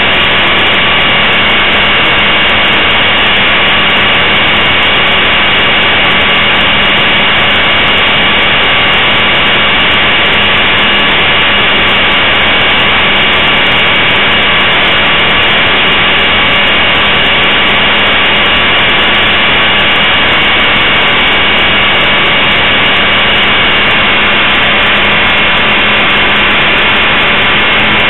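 Blade 450 3D electric RC helicopter's brushless motor, gears and rotor running steadily, a constant high whine. It is heard very close and loud from a camera mounted on the helicopter.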